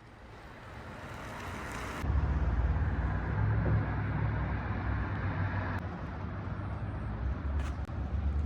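Car engine running steadily with a low hum, fading in over the first two seconds.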